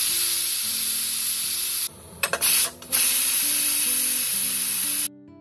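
Steam hissing hard out of a stovetop pressure cooker's weight valve as the weight is lifted with a ladle to let the pressure out after cooking. The hiss is steady, breaks off for about a second in the middle with a couple of short spurts, then resumes and cuts off suddenly near the end.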